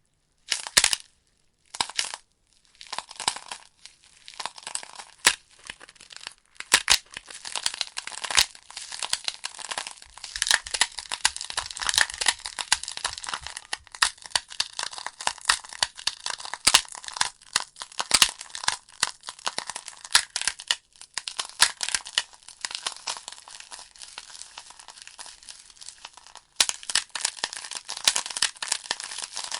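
Wood fire burning in a fireplace: logs crackling and popping in dense, irregular snaps over a soft hiss, with a few brief lulls near the start.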